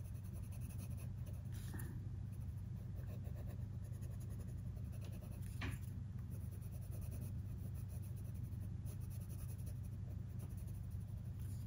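Colored pencil scratching softly on paper in steady coloring strokes, over a steady low hum.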